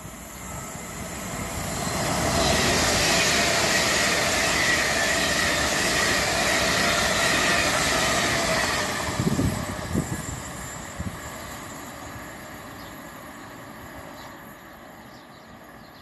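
LNER Azuma high-speed train passing through the station without stopping: a rising rush as it approaches, a loud steady run-by with a high whine over the noise, a few sharp knocks about nine to ten seconds in, then fading as it goes away.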